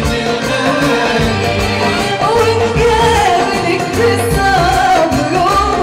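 Live Arabic tarab music played by a band with a repeating low beat; a woman's voice starts singing into a microphone about two seconds in.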